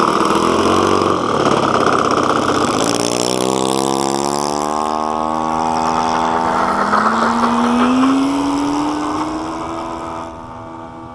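Thunder Tiger 91FS four-stroke glow engine of an RC P-51 Mustang running, its pitch climbing steadily over several seconds as it speeds up, then falling off in level near the end.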